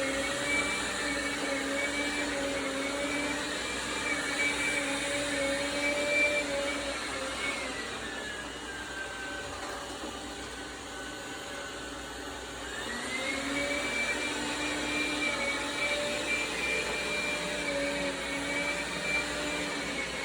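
Dreame Bot L10 Pro robot vacuum's suction fan running with a steady high whine. A little before halfway it winds down to a lower, quieter pitch, then spins back up about two-thirds of the way through. This is the turbine switching its boosted power off and on, the boost that the owner complains it engages as if on carpet when it is not.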